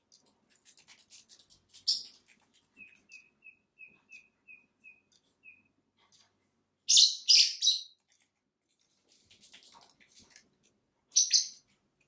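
Lovebirds chirping. There are sharp, shrill chirps about two seconds in, a burst of three around seven seconds and another near the end. In between comes a run of about eight short, soft peeps at roughly three a second.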